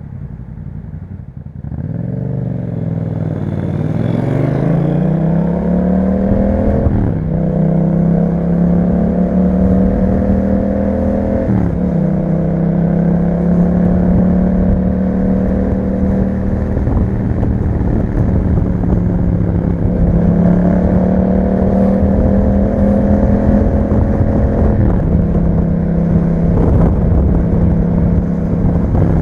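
2021 Yamaha MT-07's parallel-twin engine through an Akrapovic exhaust, pulling away and accelerating up through the gears. The pitch climbs and drops sharply at upshifts about 7 and 11 seconds in, runs steady at cruise, then rises again and drops at another shift near the end.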